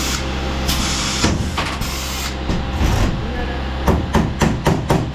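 Pneumatic huck gun setting Huck lockbolts in cab sheet metal: bursts of air hiss, then a quick run of sharp clicks and knocks near the end, over a steady low hum.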